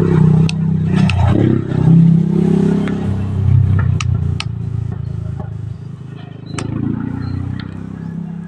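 A loud, wavering engine-like rumble that rises and falls in pitch, with scattered sharp clicks of gravel and plastic toy parts as a toy excavator scoops stones into a toy dump truck.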